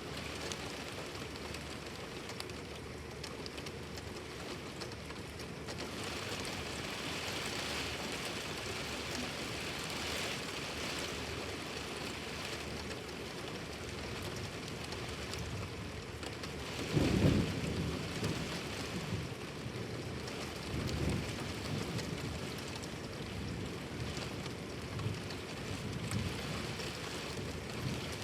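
Steady rain pouring down in a thunderstorm, with a loud low roll of thunder a little past halfway and fainter rumbles after it.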